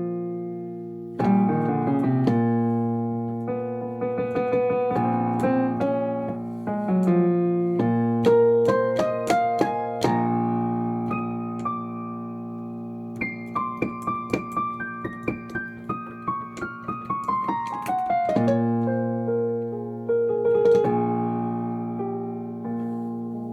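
A keyboard instrument playing held chords with decaying notes, then a quick run of notes descending in pitch in the second half.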